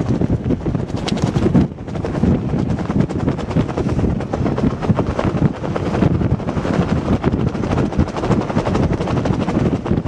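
A backpack rain cover flapping rapidly in strong wind, with the wind buffeting the microphone. It makes a fast, continuous fluttering.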